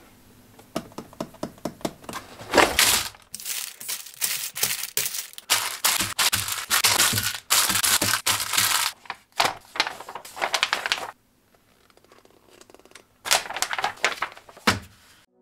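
Unboxing a brick construction set: sealed plastic parts bags crinkling and rustling, with sharp clicks and knocks of the cardboard box and bagged bricks. There is a short lull, then a quick run of the instruction booklet's pages flipping near the end.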